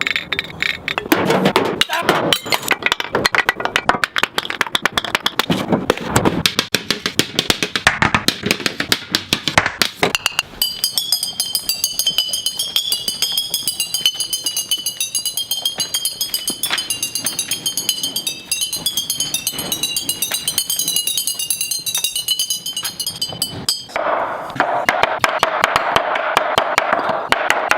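Rapid-fire chopped snippets of glass bottles knocking and clinking as they land on hard surfaces, spliced so tightly that they make a stuttering, drum-like rhythm. For a long stretch in the middle, a high glassy ringing tone holds over the clicks.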